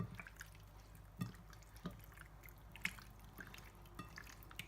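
Faint wet squelches and small clicks of raw chicken pieces being turned over by hand in a bowl of beaten egg, a few scattered sounds about a second apart over a low hum.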